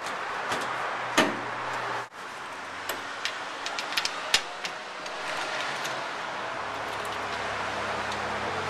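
Scattered clicks and knocks of a tonneau cover's side rail and metal clamp being handled and fitted against a pickup's bed rail, over a steady hiss. The loudest click comes about a second in, and a run of smaller clicks follows a few seconds later.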